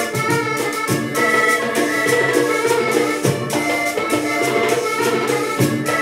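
Diatonic button accordion playing a porro, held reedy chords and a running melody, over hand percussion keeping a steady rhythm.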